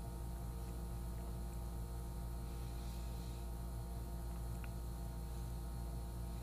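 Steady electrical mains hum with several steady overtones and faint hiss, unchanging throughout.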